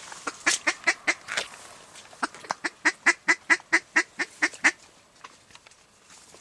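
Duck call blown in rapid quacks imitating a mallard hen: a short run of about five, then, after a pause, a longer even run of about a dozen at roughly five a second, loud and close.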